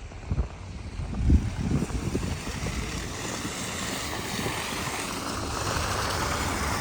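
Wind buffeting the microphone in a blizzard, with uneven low thumps in the first two seconds, then a steady rushing hiss that builds from about three seconds in.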